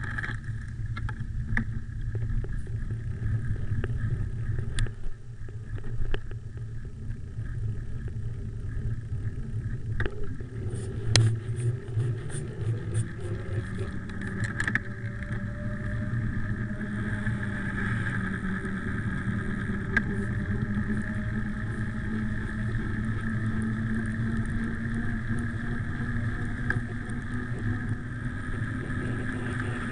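Bicycle descending on a handlebar-mounted camera: wind rushing over the microphone and tyres rolling on the road, with a run of clicks and rattles a little before halfway and a hum that rises slightly in pitch as the bike gathers speed.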